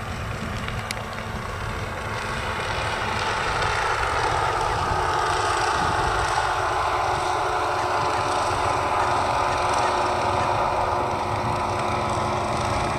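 Motorboat engine running steadily, growing a little louder over the first few seconds as the boat passes.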